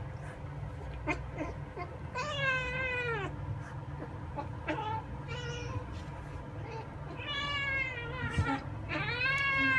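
Kitten meowing: three long, drawn-out meows with a few short chirping calls between them.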